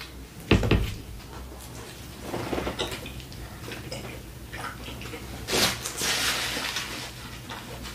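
Close-miked chewing of a mouthful of cheeseburger, with wet mouth clicks. A single thump comes about half a second in, and a paper napkin rustles for a second or so just past the middle.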